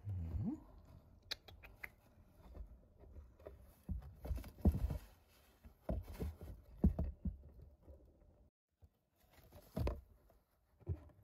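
Irregular soft thumps, taps and scrapes against a cardboard box, with the loudest bump right at the start and a cluster of knocks in the middle.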